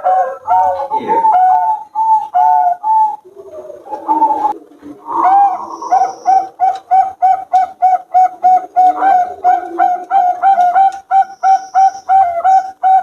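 Zebra dove (Bangkok perkutut) cooing: rapid runs of short, even notes, about three a second, with a lower, softer passage about three to five seconds in.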